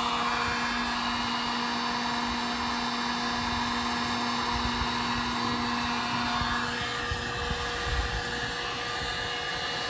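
Electric heat gun blowing steadily, warming the 3M adhesive tape on an LED light pod. Its hum changes slightly about two-thirds of the way through.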